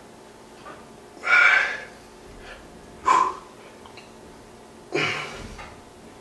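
A man breathing out hard three times, each breath a second or two apart, from the strain of lifting a dumbbell in curls.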